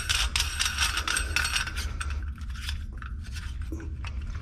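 A nut spun by hand onto the threaded brass body of a sink's pop-up drain, over a rubber washer: quick small clicks and scraping of threads, busiest in the first two seconds and then sparser ticking.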